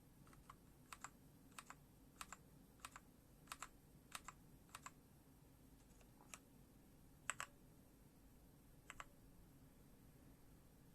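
Keys on a MORPH MK1 mechanical keyboard pressed one at a time, each press giving a quick double click of press and release. There are about ten presses over the first five seconds, then single ones about six, seven and nine seconds in.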